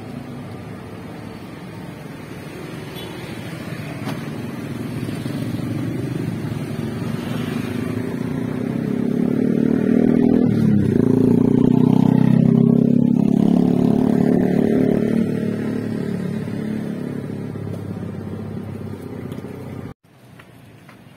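A motor vehicle's engine passing close by, growing louder to a peak about halfway through and then fading away. It cuts off suddenly near the end.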